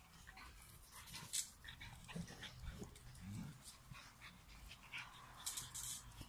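Dog sounds, faint: breathing and snuffling, with a few short low grunts about two and three seconds in.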